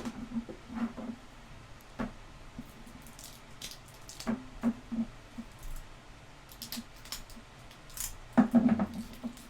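Scattered crinkles and clicks of sealed trading-card packs and their plastic wrapping being opened and handled, with a louder stretch of handling noise near the end.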